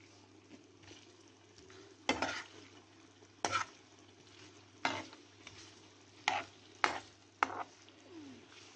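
Paneer cubes frying in olive oil in a frying pan with a faint sizzle, while a steel spoon turns them, scraping against the pan six times at roughly one-second intervals from about two seconds in.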